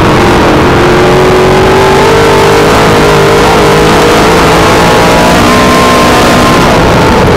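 A dirt modified race car's V8 engine running hard at speed, heard very loud from inside the cockpit. The engine note rises and falls a little as the car goes around the track.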